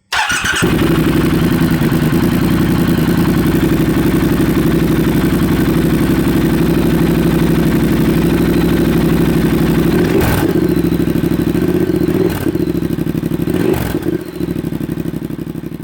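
Triumph Speed Twin's parallel-twin engine running steadily, with a few brief surges in the last few seconds as the sound tapers off.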